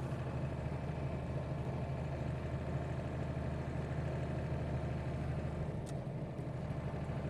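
Steady low drone of engine and tyre noise inside the cabin of a vehicle being driven.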